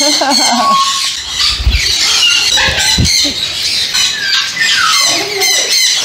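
Parrots squawking and chattering, many calls overlapping. Two dull low thumps come about two and three seconds in.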